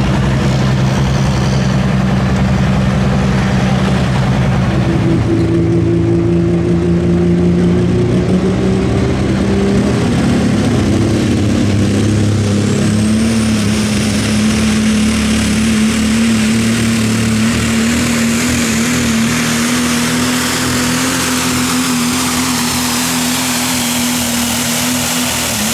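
Super modified four-wheel-drive pulling truck's engine running flat out under load while pulling the sled. It is loud and steady, steps up in pitch about five seconds in, then climbs slowly and holds high.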